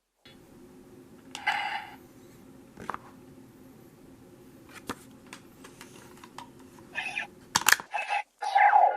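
Low steady hum with scattered sharp clicks, a short burst of sound a second and a half in, and a cluster of louder short sounds in the last two seconds.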